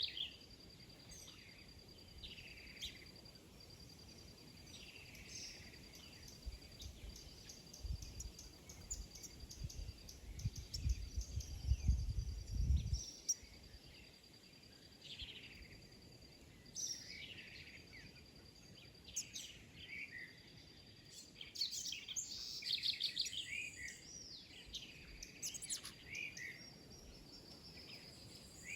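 Several small birds chirping and calling, with short, sliding whistled notes coming thick and fast, over a steady, fast-pulsing high trill. A low rumble comes in for several seconds about a third of the way in.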